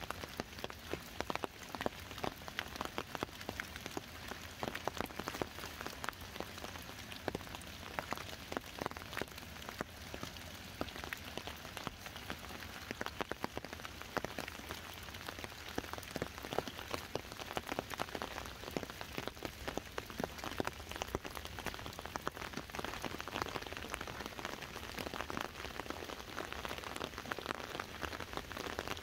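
Steady rain falling on an umbrella overhead: a dense, continuous stream of sharp individual drop taps over the hiss of rainfall.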